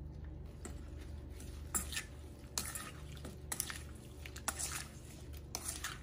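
A white plastic spoon mixing a wet salad of sliced vegetables and herbs in its dressing in a stainless steel bowl. It makes irregular scrapes and clinks against the bowl, roughly once a second, with soft squishing.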